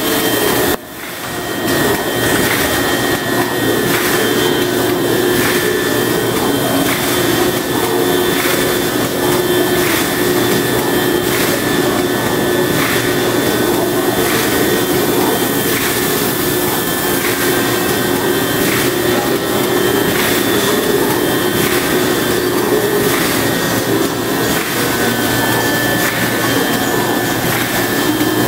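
Plastic bag-making machine with wicketer running: a steady mechanical drone with a faint tick about every second and a half as each bag cycle goes.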